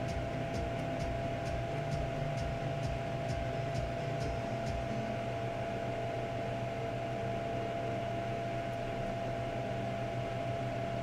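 Steady room tone: an electrical hum with a fixed tone over a low fan-like drone. Faint regular ticks, about three a second, fade out about halfway through.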